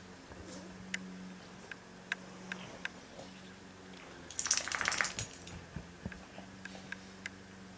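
A dog's metal collar tag jingling in a quick, dense run of clinks lasting about a second, a little past halfway, with a few single clicks before and after.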